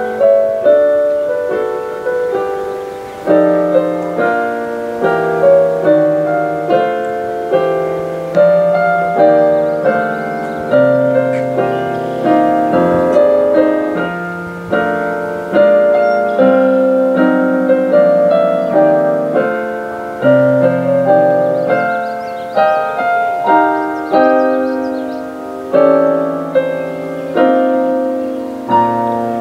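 Solo piano music: slow chords struck about once a second, each left to fade before the next.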